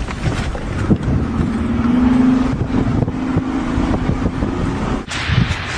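Car driving at speed, engine and road noise heard from inside the cabin, with a steady engine drone from about a second in. Just before the end it changes suddenly to wind rushing over the microphone.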